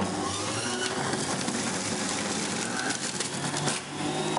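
Electric centrifugal juicer running under load as ginger and apple are pushed down its feed chute and shredded: a steady motor whir with grinding. The noise dips briefly shortly before the end.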